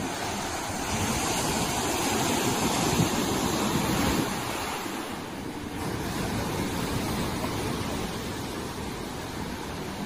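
Sea surf breaking and washing over shoreline rocks, a steady rush of water. One surge builds from about a second in and falls away a little after four seconds.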